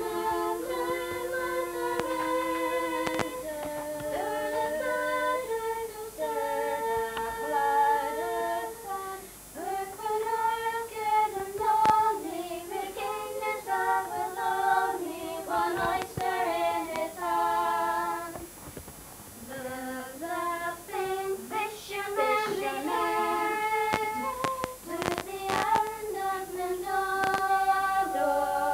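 Young girls singing a song unaccompanied, a single melody line of held notes.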